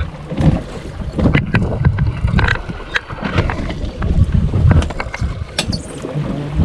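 Wind buffeting the microphone aboard a small fishing boat at sea, with a rumbling, gusty low noise and scattered sharp knocks and clicks.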